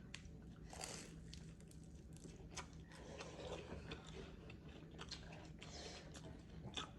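Faint close-up chewing and biting of food, with scattered small crunches and wet mouth clicks.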